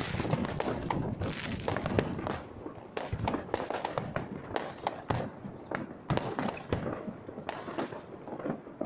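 Fireworks going off: a dense, irregular run of bangs and crackles from aerial shells, thinning a little after about two and a half seconds.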